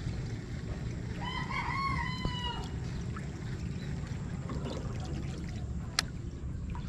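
A rooster crowing once, a single call lasting about a second and a half. A single sharp click follows near the end.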